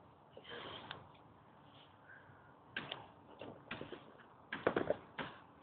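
A person doing a back handspring: faint scuffs and knocks of movement, then a cluster of louder thumps near the end as they land.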